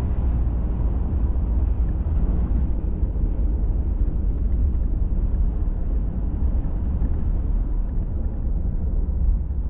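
Pickup truck driving on a dirt road: steady low engine and tyre rumble.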